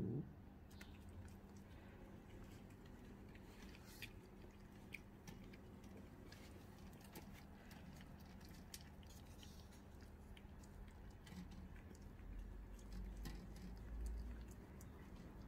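A calico cat eating tuna from a stainless steel bowl: faint, irregular chewing and licking clicks. A low rumble comes in near the end.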